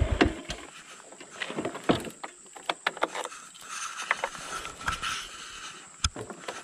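A motorbike engine cuts off right at the start, then scattered clicks and knocks as the stopped bike and gear are handled while the rider gets off, with faint chirping in the background.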